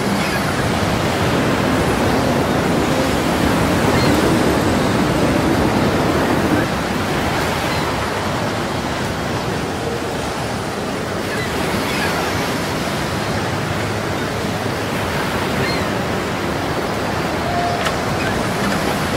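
Steady rushing noise of wind and choppy sea water. It drops a little in level about six and a half seconds in.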